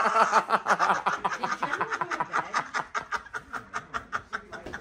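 A person laughing in quick pulses, about five a second, that trail off and grow fainter toward the end.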